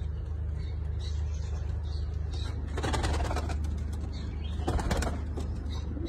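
Domestic pigeons in a loft, wings flapping in two short flurries, about three seconds in and again near five seconds, over a steady low hum.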